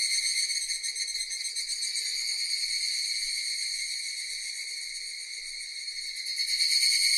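Cicadas droning in a steady, high-pitched buzzing chorus that eases off through the middle and swells back up near the end.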